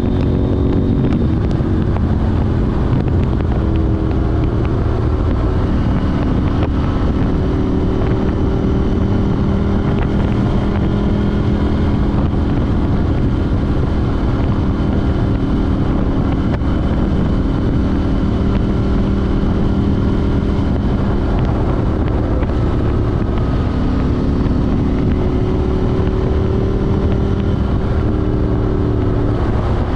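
KTM 790 Duke's parallel-twin engine breathing through an Arrow Race-Tech exhaust with de-cat link pipe, running under way with its note shifting in pitch a few times, over steady wind rush on the microphone.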